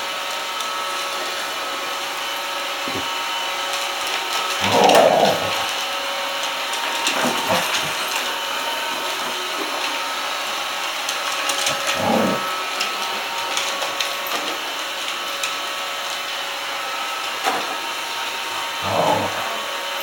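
Roomba robot vacuum running with a steady motor-and-brush hum, broken several times by short, louder low sounds.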